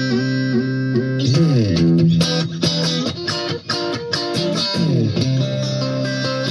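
Electric guitar with single-coil pickups played through a LEKATO R COMP compressor pedal into a small amp. Notes and chords ring out with long, even sustain, with a downward slide about a second in and another near the end.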